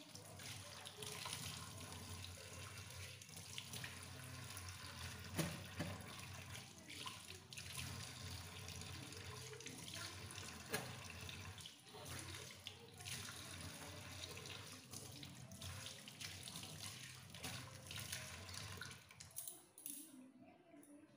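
Water running steadily, as from a tap.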